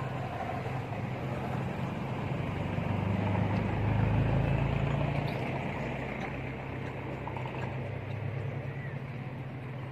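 Motor vehicle engine hum, steady and low, swelling to its loudest about four seconds in and then easing off.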